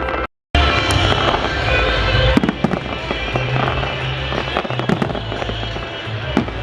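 Fireworks salute going off: repeated bangs and crackling bursts over music, with the audio cutting out completely for a moment just after the start.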